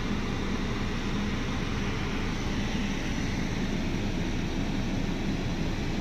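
Steady, even rushing noise inside a car's cabin, with a low hum underneath.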